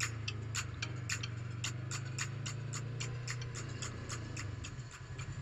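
Sharp clicks at an even pace of about two a second, like a motorcycle's turn-signal flasher, over the low, steady running of a Yamaha sport bike's engine at walking pace. Near the end the engine settles into a pulsing idle.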